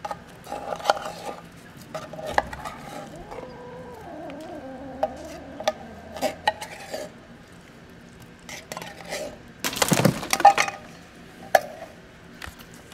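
A cat eating wet food from a foam tray at close range: wet chewing and smacking with many small clicks and taps against the tray. A loud bump about ten seconds in.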